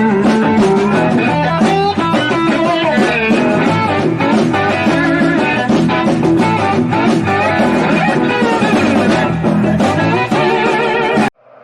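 Electric guitar playing a blues lick over a backing track with bass; the music cuts off suddenly near the end.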